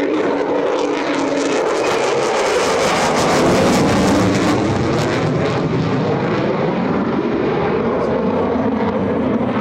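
F-35C Lightning II's jet engine roaring during a low pass, growing louder to a peak around the middle with crackling, then easing into a steady, slowly shifting rumble.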